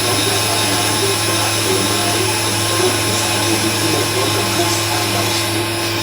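CNC machine running, a steady motor hum and whir that holds at one pitch.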